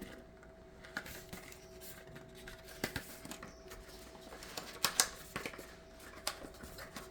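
Product packaging being handled and opened: irregular clicks, taps and light rustling of a small cardboard box and its contents, the sharpest pair about five seconds in. A faint steady hum runs underneath.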